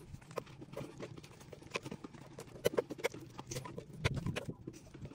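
A meat cleaver cutting raw chicken on a plastic cutting board: irregular sharp knocks as the blade strikes the board.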